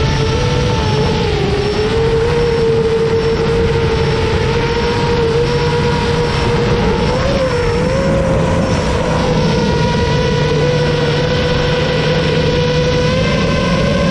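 FPV racing quadcopter's motors and propellers whining steadily as it flies, the pitch wavering slightly with throttle and rising a little near the end.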